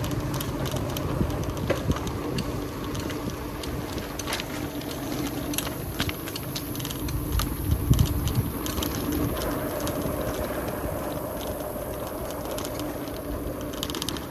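Outdoor ambience on the move: wind rumbling on the microphone under a steady low hum, with many light clicks and rattles and a louder knock about eight seconds in.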